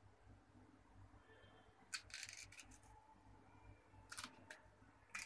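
A knife cutting okra pods held in the hand: faint, sharp clicks, a cluster of them about two seconds in and two more near the end.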